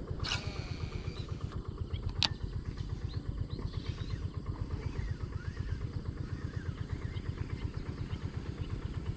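A small engine running steadily with an even, fast chugging beat. Two sharp clicks come near the start and a little over two seconds in.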